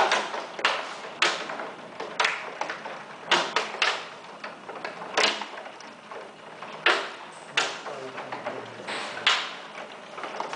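Hailstorm: a constant hiss of falling hail and rain, broken by loud, sharp knocks of single hailstones striking close by, about once a second at irregular intervals.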